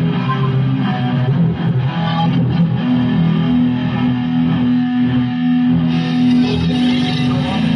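Outro music led by guitar, with held notes.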